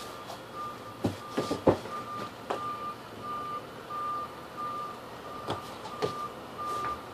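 A single high-pitched electronic beep repeating evenly about one and a half times a second, like a reversing alarm. Over it, scattered thumps and scuffs of grappling bodies on floor mats, the loudest between one and two seconds in.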